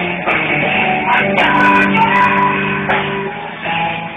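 A live band playing amplified rock music with guitars prominent. It is heard through a phone's microphone, with the top end cut off.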